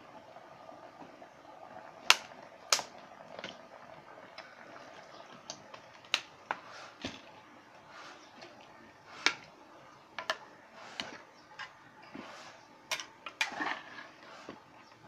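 A metal spatula knocking and scraping against the side of an aluminium pot while stirring vegetables, in irregular sharp clicks about a dozen times, loudest about two seconds in and again near nine seconds.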